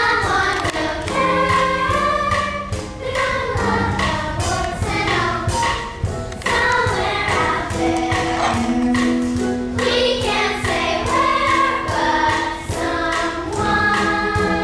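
A stage-musical chorus singing a number together over backing music with a steady beat.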